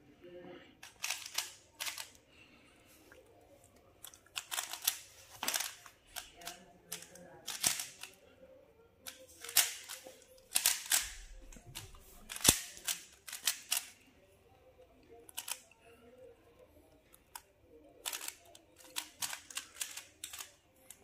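A 3x3 Rubik's cube being turned quickly by hand: rapid, irregular clicking and clacking of the plastic layers, in bursts of several turns with short pauses between them.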